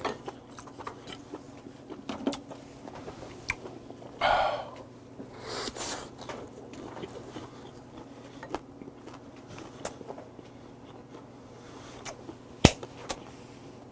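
A person chewing a mouthful of food, with soft wet mouth noises and small clicks of chopsticks and tableware. There is a brief louder mouth noise about four seconds in and a sharp tap near the end.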